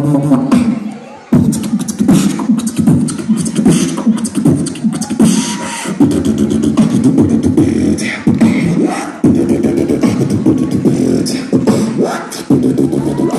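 Beatboxing into a handheld microphone, amplified over a stage speaker: rapid drum-like clicks and snare hits over a hummed bass line, with a brief break about a second in.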